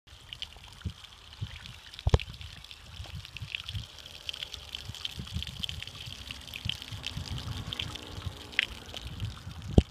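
Water trickling and splashing down a small garden waterfall, a busy irregular patter, with two sharp knocks, one about two seconds in and one near the end.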